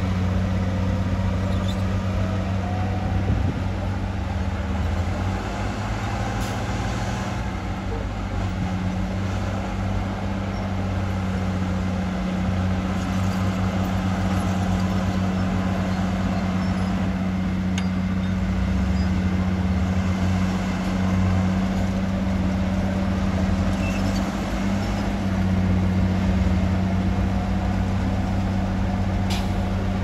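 Heavy earthmoving machine's diesel engine running steadily, a low drone that swells slightly now and then.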